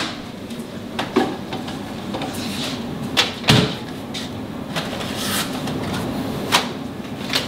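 Kitchen doors being handled, a built-in microwave and a tall pantry cupboard: scattered clicks and knocks, the loudest about three and a half seconds in, over a steady low hum.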